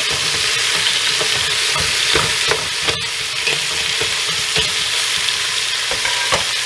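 Beef short ribs searing in hot oil in a stockpot: a steady sizzle, with a few sharp clicks as metal tongs shift the pieces against the pan.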